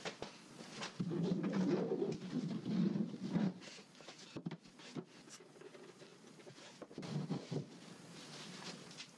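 Light taps and knocks from a long-handled brush working epoxy into seam tape inside a cedar-strip kayak hull. A low, wavering sound starts about a second in and lasts about two and a half seconds, then comes again briefly near the seven-second mark; it is the loudest thing here.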